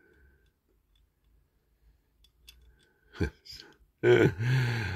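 Faint small clicks and ticks of die-cast metal and plastic toy-car parts being handled and fitted together, then a man's voice, loud, from about four seconds in.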